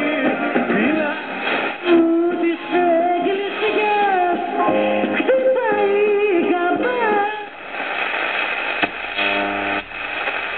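Vintage FEDHA 63 tube radio playing a broadcast song with a singing voice through its loudspeaker, thin-sounding with nothing above the upper midrange. Near the end the song stops, leaving a short stretch of hiss and a brief buzzing tone.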